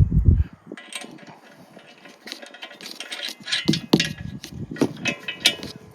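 Metal tools and rack hardware being handled: scattered clinks, rattles and light knocks.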